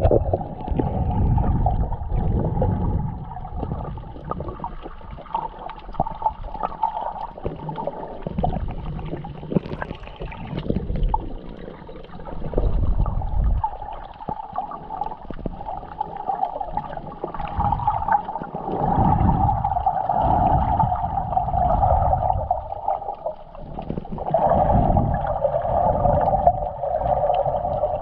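Muffled underwater water noise picked up by a submerged camera: a dull rushing rumble that swells and fades every few seconds, with a steady midrange hum.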